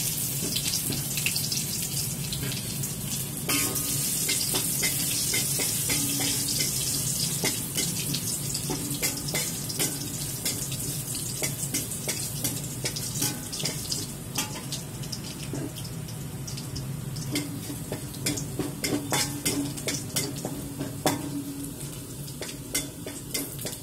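Minced garlic sizzling in hot oil in a metal wok, a steady hiss dotted with many small crackles and pops, at the early sautéing stage before the garlic browns. A spatula stirs and scrapes against the wok now and then.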